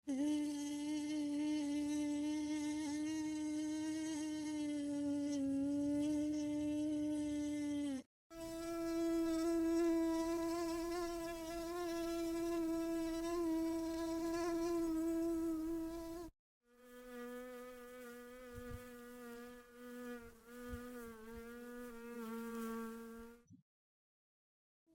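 Mosquito wingbeat whine: three separate buzzes of about eight seconds each, split by short silences. The pitch stays nearly steady with slight wavering, and the third buzz is lower and quieter.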